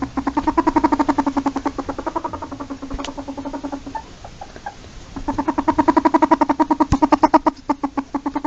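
Polecat giving a rapid chattering call, a fast train of pitched pulses about a dozen a second. It fades briefly around the middle, then starts again loudly.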